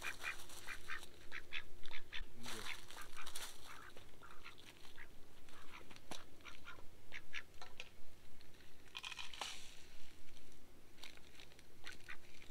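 Waterfowl calling, many short calls in scattered clusters.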